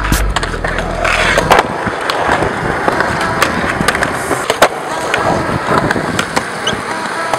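Skateboard wheels rolling over concrete, with repeated sharp clacks of the board hitting the ground.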